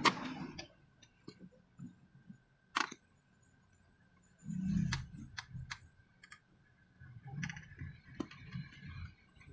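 Scattered clicks and taps of long-nose pliers and fingers handling wire connections at the carriage motor inside an Epson L805 printer, with soft rustling between them. The sharpest click comes right at the start, then single clicks and a short run of them about halfway through.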